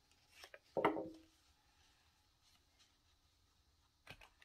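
Scissors snipping through a cardstock strip a few times in the first second, then the double click of a desktop stapler being pressed down about four seconds in.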